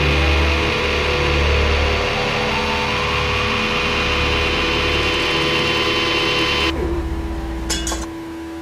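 Dense, distorted noise with steady droning tones over a heavy low rumble. Most of the upper part drops out about two-thirds of the way through, leaving the low drone.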